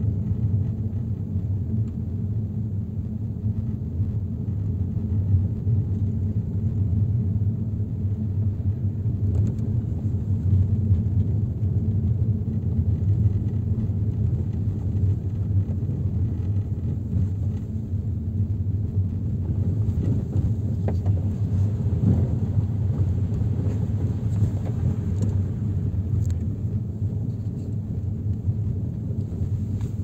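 Car driving along a road, heard from inside the cabin: a steady low rumble of engine and tyre noise, with a few faint clicks about two-thirds of the way through.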